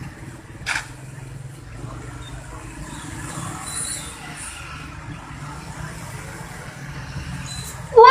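Low, steady background rumble with a faint murmur of a gathering, and one sharp click a little under a second in. A girl's reciting voice begins at the very end.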